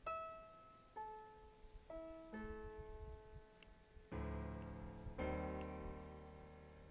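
Slow solo piano background music: single notes about a second apart, then fuller held chords from about four seconds in.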